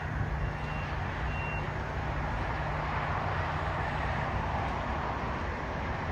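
Jet engine noise from a landing Boeing 737: a steady rushing sound that swells a little in the middle. A few short, faint high beeps sound in the first second and a half.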